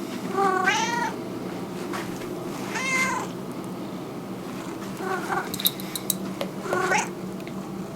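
Domestic cat meowing: four separate meows, the first and longest about half a second in, each arching up and down in pitch, over a steady low background hum. A few faint clicks fall between the third and fourth meows.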